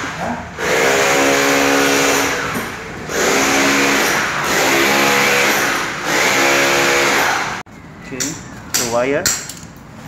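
A person's voice in long, steady-pitched phrases that stop abruptly about three-quarters of the way through, followed by fainter voice sounds.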